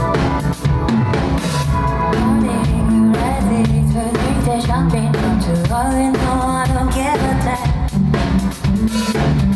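Pop song played by a band, with a drum kit keeping the beat on bass drum and snare under a melody line.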